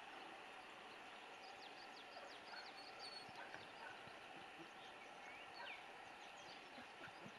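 Faint outdoor ambience with small birds chirping here and there: many short, high calls over a low steady hiss.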